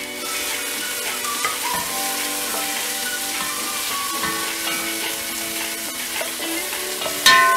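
Chopped onions and green chilli sizzling as they fry in hot olive oil, stirred with a wooden spoon scraping around the pot. Background music plays alongside, and a sudden louder note comes in near the end.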